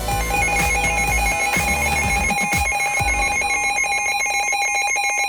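NOAA Weather Radio SAME header: a rapid, buzzy stream of alternating electronic data tones that encodes the alert. The tail of background music runs under it for the first three seconds.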